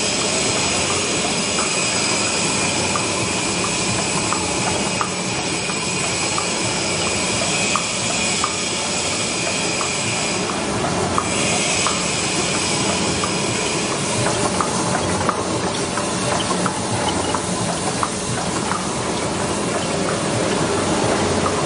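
Medical gauze cutting and folding machine running: a steady mechanical clatter and hiss with a high whine, which drops out briefly about halfway through, and light clicks in the second half.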